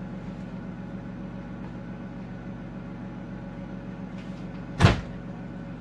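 A door thumps once, about five seconds in, as it is pushed against two stacked rubber wedge door stoppers on a linoleum floor; the wedges hold it. Under it runs a steady low hum.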